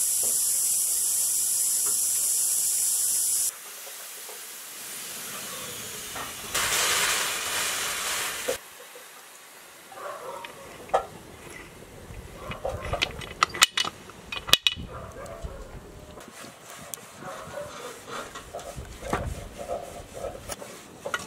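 Steam hissing from a clamped aluminium pressure pot: a loud steady hiss for the first few seconds, then after a break a second burst of hiss lasting about two seconds. Scattered metallic clicks follow, with two sharp clanks near the middle as the lid's clamps are worked open.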